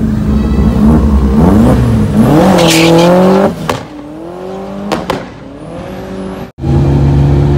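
VW Lupo drag car launching and accelerating hard down the strip, its engine pitch climbing and dropping back with each gear change, then fading as the car pulls away. Near the end a different car's engine idles steadily.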